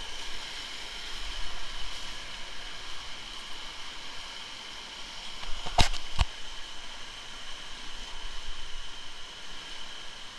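Canyon stream rushing over rocks, a steady wash of water. There are two sharp knocks in quick succession a little past the middle.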